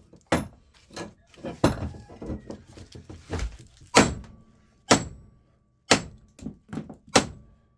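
A series of hammer blows on a small transformer's steel core, about one a second, some with a short metallic ring, the loudest about four seconds in: knocking the copper windings loose for scrap.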